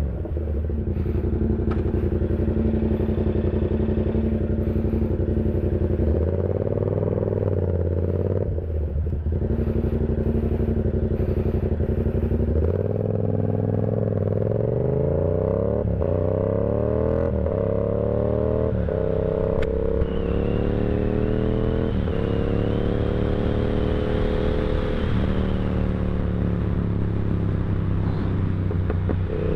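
Yamaha R7 motorcycle engine running, rising briefly in pitch around 6 seconds in. From about 13 seconds it accelerates hard through several gears, the pitch climbing and dropping at each shift, then settles to a steady cruise.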